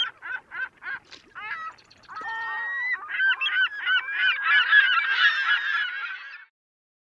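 A flock of geese honking: a run of single honks about three a second, then from about two seconds in many birds calling at once in a dense, overlapping chorus that stops suddenly near the end.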